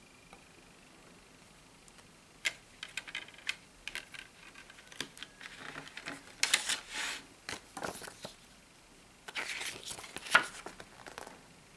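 Handling of a plastic CD jewel case and its paper booklet, starting about two seconds in: a string of sharp plastic clicks as the disc is set back on the hub, then rustling and scraping as the booklet is slid out of the case.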